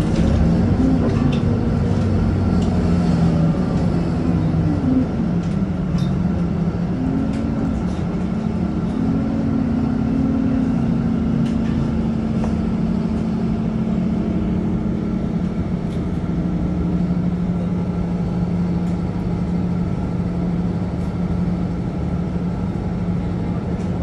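City bus driving along a street, heard from inside the cabin: a steady low engine drone whose pitch wavers and glides during the first dozen seconds, then holds level.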